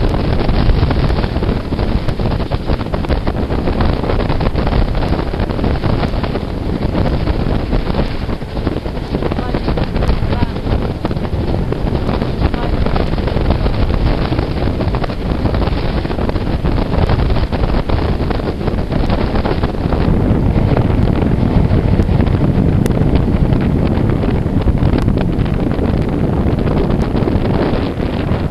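Wind buffeting a microphone held out of the window of a moving train, over the train's steady running rumble.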